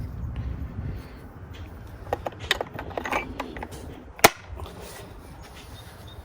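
Scattered clicks and light scrapes of the chainsaw's parts being handled and put back together after the new chain is tensioned, with one sharp click a little past four seconds in.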